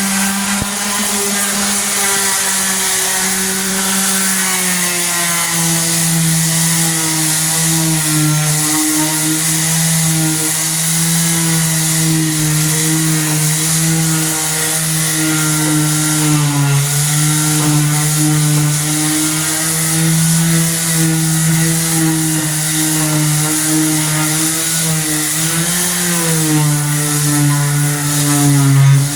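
Electric floor sander running steadily on a hardwood floor, its motor hum dipping briefly in pitch now and then, with a steady hiss of sanding on top.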